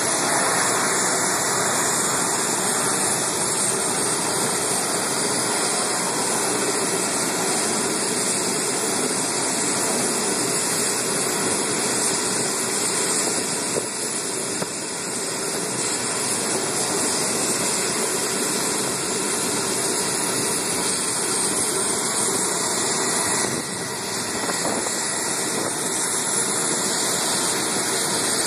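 Jet aircraft engines running on an airport ramp: a steady, continuous rush with a thin high whistle over it. The loudness dips briefly about halfway through and again near the end.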